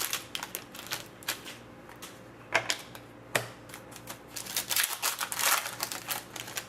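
Trading cards and their foil pack being handled and flicked through: irregular crisp clicks and rustles, with a couple of louder clicks near the middle.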